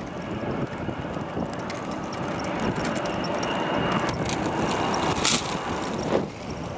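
Distant jet engine noise, a steady rushing sound, with scattered clicks and crackles over it.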